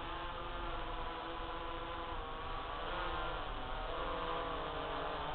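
DJI F550 hexacopter's six motors and propellers buzzing as it hovers, several tones at once whose pitches waver up and down.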